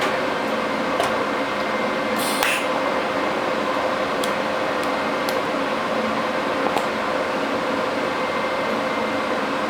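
Steady machine hum with a hiss, holding one pitch, with a few faint clicks.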